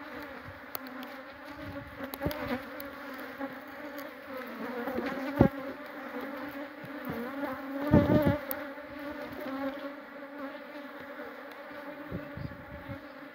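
Honeybees buzzing steadily over an opened hive, a dense hum from a colony that has turned aggressive. There is a sharp knock about five seconds in and a brief louder bump around eight seconds.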